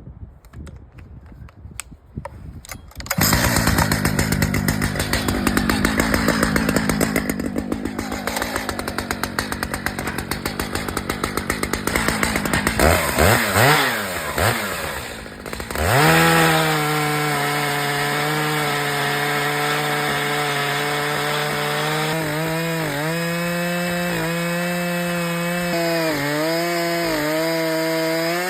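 Stihl MS 881 two-stroke chainsaw on an Alaskan chainsaw mill, cutting a slab from an ash log. It comes up to full throttle about three seconds in, the revs swing up and down for a few seconds, then the engine holds a steady high pitch in the cut, with several brief dips as it loads in the wood.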